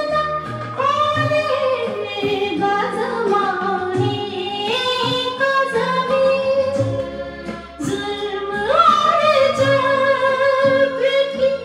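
Vinyl record playing through loudspeakers: a woman sings a Hindi song in long held, wavering notes that slide between pitches, over an instrumental backing.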